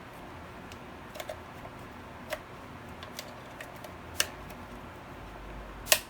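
A car door lock mechanism being handled and worked by hand: a few separate sharp clicks and light knocks of small metal and plastic parts, the loudest just before the end.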